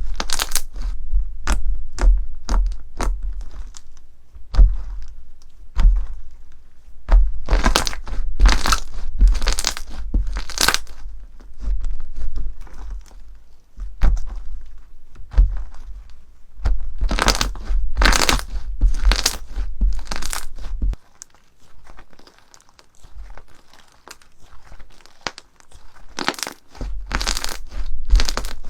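Crunchy slime being squeezed and pressed by hand, giving clusters of sharp crackling and crunching pops. There is a quieter stretch with only a few faint crackles about three quarters of the way through before the crunching picks up again.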